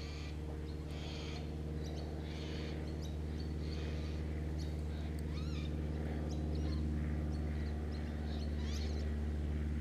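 Birds chirping and calling in short repeated phrases over a steady low hum.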